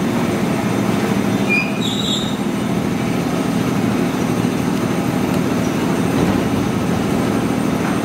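Electric commuter train standing at the platform with its equipment running: a steady low rumbling hum, with a couple of brief high squeaks about two seconds in.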